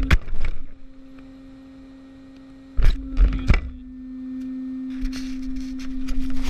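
Brushless electric drive of a Traxxas Bandit RC car with a steady electric whine, broken by sharp knocks at the start and about three seconds in, then bursts of rough driving noise over the last second and a half.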